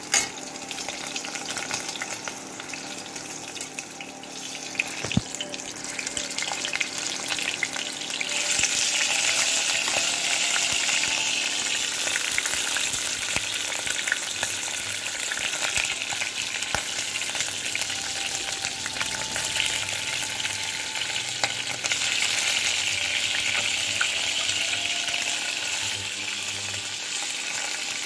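Blanched chicken pieces shallow-frying in oil in a steel pan: a steady sizzle that grows louder about eight seconds in, with light clicks of metal tongs turning the pieces.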